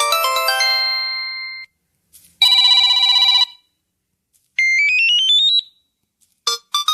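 Samsung Galaxy S25 Ultra ringtones and notification tones played one after another. A melodic ringtone fades out, then comes a buzzing tone about a second long, then a quick rising run of notes, and near the end a new tune of short plucked notes starts.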